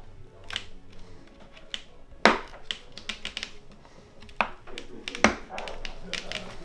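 Plastic clips of a JBL Xtreme speaker's outer shell clicking and snapping as they are pried loose with a small screwdriver: a series of sharp clicks, the loudest a little over two seconds in.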